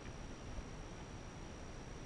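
Faint steady hiss with a low rumble underneath and a thin steady high whine: the background noise of a wide-angle action camera's microphone. There is a faint knock about half a second in.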